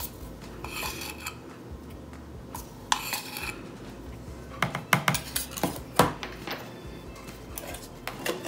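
A plastic measuring spoon scraping twice in a can of baking powder, scooping and levelling it off. A few sharp clicks and taps follow as the spoon knocks against the mixing bowl and is put down.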